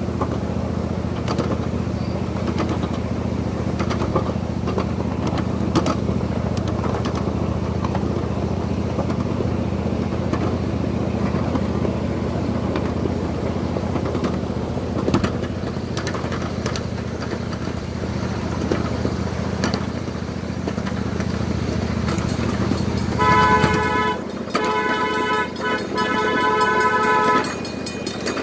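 Miniature park train running along its narrow-gauge track with a steady low rumble. Near the end its horn sounds three blasts, the last the longest, as the rumble falls away.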